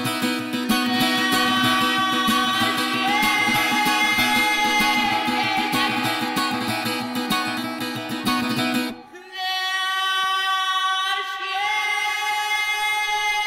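Noisy lo-fi rock band demo recording: guitar and drums with a held sung line. About nine seconds in, the drums and bass cut out, leaving sustained high tones ringing.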